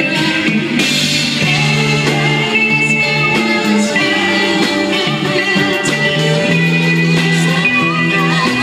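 A band playing rock music led by guitar, with some singing.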